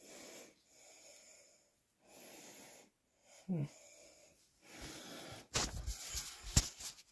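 A person's heavy breathing, hissy breaths about a second apart, with a brief low vocal grunt about three and a half seconds in. Near the end, louder rustling and a sharp knock as the phone is handled.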